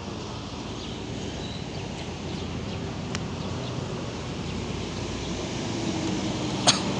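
Motorbike traffic on the road, a steady engine noise that grows louder as a bike approaches in the second half. A single sharp click near the end.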